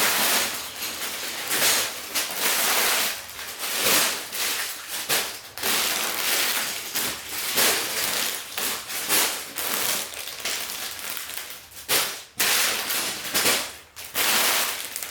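Irregular rustling and clattering of plastic Lego pieces and their bags being handled and sorted, with many short sharp crackles.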